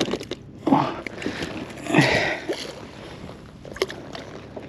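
Water sloshing and splashing at the side of a kayak, with the biggest splash about two seconds in and a sharp click near the end.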